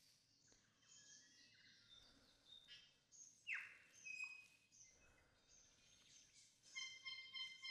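Faint birds calling in forest: scattered thin whistled notes and chirps, a quick falling sweep about halfway through, and a steady, pulsing call in the last second.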